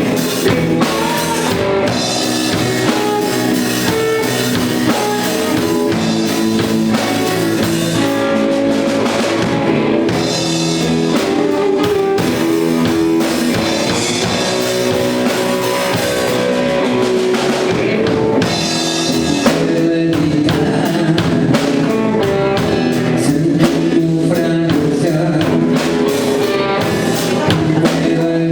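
Blues song played by a band, with guitar and drum kit and a voice singing.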